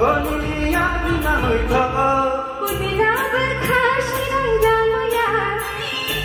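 Male and female voices singing a Tripuri folk-pop duet over an amplified instrumental backing with a steady beat; the man sings first and the woman takes over partway through.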